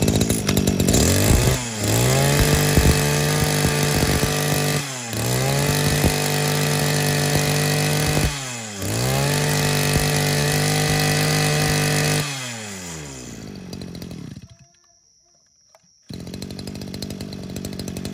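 Robin 20cc brush cutter's small two-stroke engine run at high revs. The throttle is dropped three times, the revs falling and climbing back each time, then released. The engine winds down and stops, then is running again more quietly near the end.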